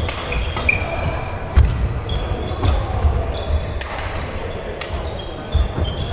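Badminton rally: rackets striking the shuttlecock with sharp, irregular taps and court shoes squeaking on the floor, echoing in a large sports hall.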